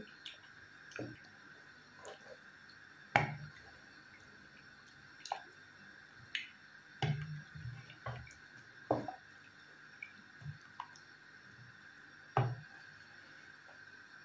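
Red kuri squash and chicken soup simmering in a pan, thick bubbles popping one at a time at irregular intervals, every second or two.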